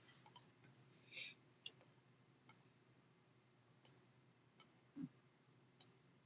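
Computer mouse clicking: a quick run of clicks in the first second, then single clicks at irregular intervals of about a second.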